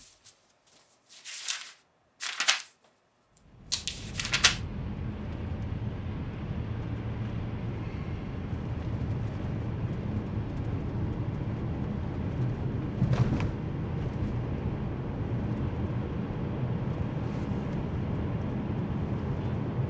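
A few short rustles against near silence, then, from about three and a half seconds in, the steady low rumble of engine and road noise inside a moving Nissan car, with one brief louder bump around the middle.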